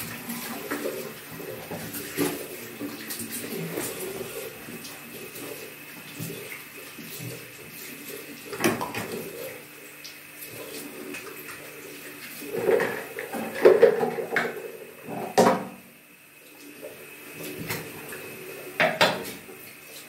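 Objects clinking and knocking against a ceramic bathroom washbasin in irregular bursts, the loudest in the second half, with some running water from the tap.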